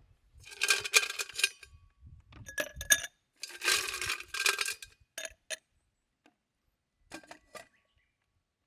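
Metal camp cookware and utensils clinking and clattering in several bursts, with a short metallic ring; a few lighter clinks follow near the end.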